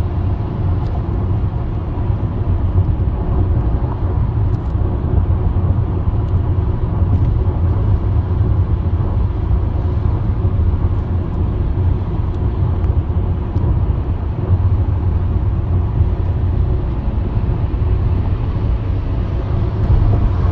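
Steady low rumble of a car's road and engine noise heard from inside the cabin while cruising on a freeway.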